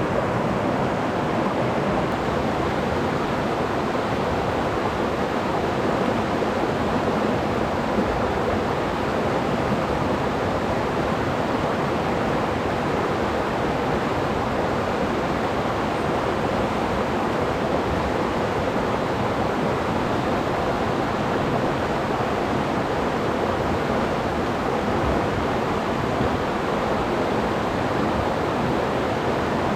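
Mountain stream water rushing, a steady, unbroken noise.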